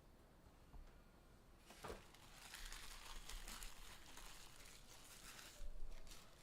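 Plastic card-pack wrappers and box shrink-wrap crinkling and tearing as packs are opened by hand, soft at first, with a louder rustle near the end.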